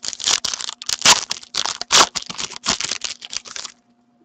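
A hockey card pack's wrapper being torn open and crinkled by hand: a dense run of crackles that stops abruptly near the end.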